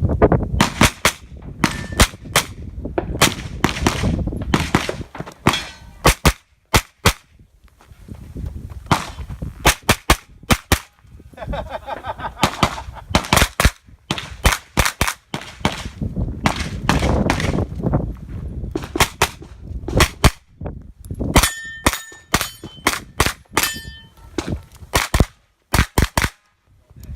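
Rapid gunfire from a 9mm JP Rifles GMR-15 pistol-caliber carbine, shots in quick pairs and strings with short pauses between, with steel targets clanging and ringing after hits, clearest a little past twenty seconds in.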